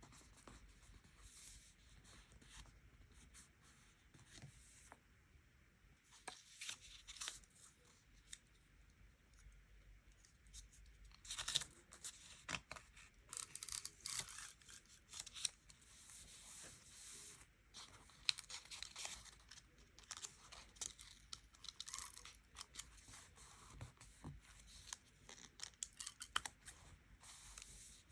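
Stickers and paper being peeled and torn by hand, in quiet irregular bursts of crackling and ripping, the busiest stretch coming in the middle.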